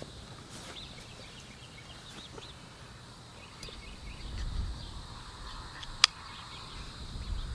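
Quiet outdoor background with faint small bird chirps, a low rumble of movement about four and a half seconds in, and one sharp click about six seconds in.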